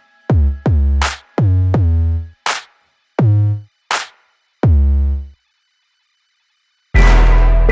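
Electronic music: a drum-machine beat of deep kicks that drop in pitch, with sharp snare or clap hits. The beat breaks off for about a second and a half, then the full track comes back in near the end.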